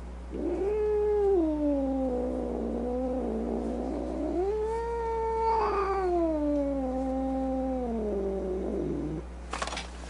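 A cat yowling: two long caterwauls, each sliding down in pitch. The second is longer than the first and sinks lowest before stopping.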